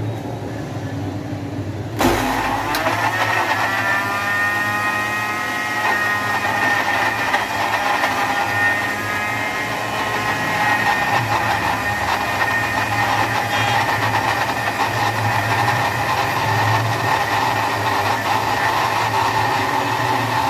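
Electric blender motor switching on about two seconds in, its whine rising as it spins up, then running steadily as it grinds chopped onions with a little water into a paste.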